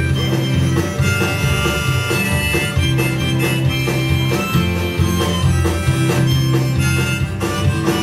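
Instrumental break of a blues song: harmonica playing held, wavering notes over acoustic guitar strumming.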